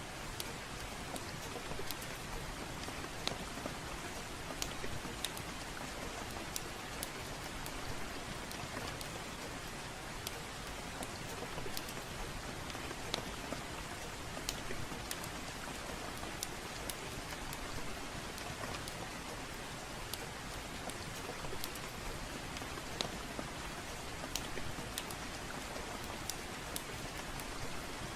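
Steady rainfall with irregular sharp crackles and pops of a wood fire in a fireplace scattered through it.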